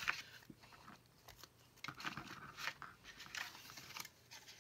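Hands pushing a metal brad through a paper pocket and a ViewMaster reel and working it into place: a sharp click at the start, then scattered light clicks and paper rustles.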